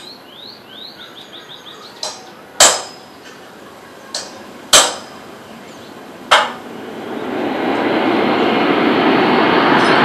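A run of short rising bird chirps, then five sharp bangs over about four seconds, three of them loud and ringing briefly. From about seven seconds in, the jet engine noise of a landing Boeing 757-200 swells up and stays loud.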